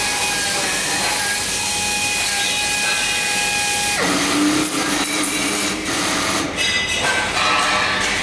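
Automated CNC machining cell with an industrial robot arm running: a steady mechanical whine and hiss with several held tones. About four seconds in the tones shift to a lower hum, followed by a run of clicks and clatters.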